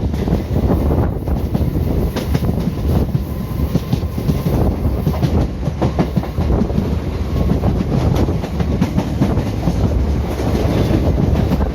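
Indian Railways ICF train running along the track: a steady rumble with irregular clicks of the wheels over the rail joints.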